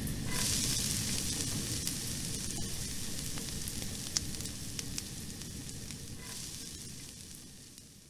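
A steady hissing, crackling noise with a few faint clicks, fading out near the end.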